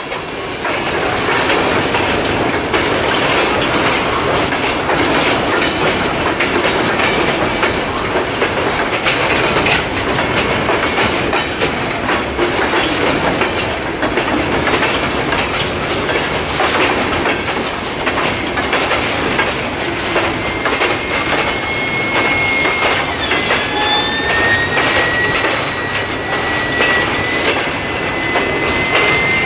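Freight train cars rolling past: a steady clatter and rumble of steel wheels over the rails. About two-thirds of the way in, thin high-pitched wheel squeal joins and lasts to the end.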